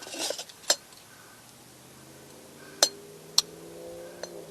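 Metal camp-stove and cookware parts clinking and knocking together as a stove is set up, with three sharp clinks. A faint steady hum comes in about halfway through.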